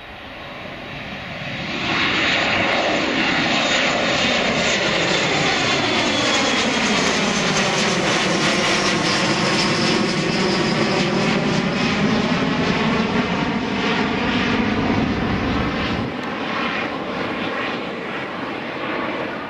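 Twin-turbofan jet airliner climbing out after takeoff and passing overhead: loud, steady jet engine noise. It swells over the first couple of seconds and tails off near the end, with a sweeping, phasing hiss as the aircraft passes over.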